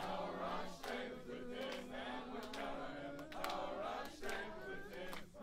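A crowd singing a chant together in unison, holding long notes, with sharp handclaps about once a second.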